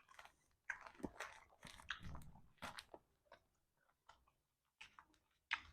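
A person eating soft-stewed chicken feet close to the microphone: faint, irregular chewing and mouth smacks.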